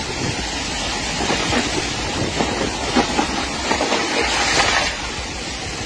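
Heavy rain and strong wind in a violent thunderstorm: a dense, steady rushing noise with faint crackle, easing slightly near the end.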